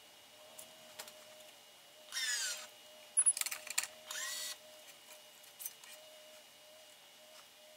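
Electronic tensioner of a Gamma 6004 badminton stringing machine whirring briefly twice as it pulls a cross string to tension, with a quick cluster of clicks from the gripper and clamps in between.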